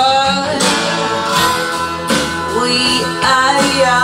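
A recorded song with singing and guitar, played back loud over Kyron Audio Kronos loudspeakers.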